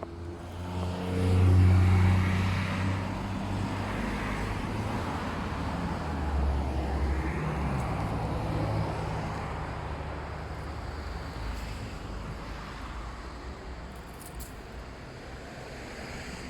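Road traffic: motor vehicles passing with a low engine hum, loudest about a second and a half in and swelling again around six seconds.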